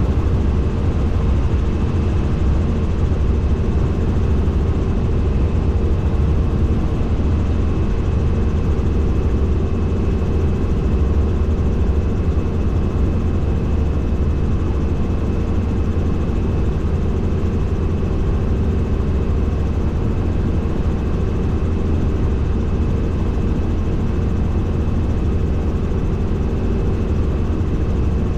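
Helicopter in steady flight: a loud, unchanging low rotor and engine drone with a thin, steady high whine on top.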